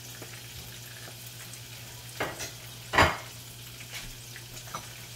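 Food frying in oil in a pan, a steady sizzle, with a couple of sharp clacks, the loudest about three seconds in.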